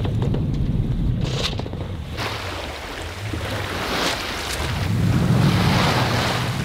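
Wind buffeting the microphone over the rush of sea water along a sailing yacht's hull under way. The water rush swells about two seconds in and is loudest a little past the middle.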